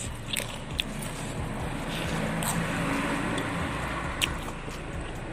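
A motor vehicle passing by: engine hum and road noise swell to a peak about three seconds in, then fade. A few small sharp clicks sound over it.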